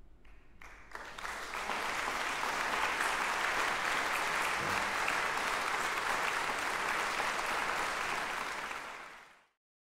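Audience applause, starting about a second in, building quickly and holding steady, then fading out sharply near the end.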